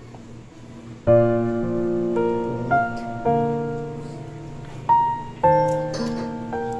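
Background piano music: slow notes and chords struck about once or twice a second, each ringing and fading, starting about a second in.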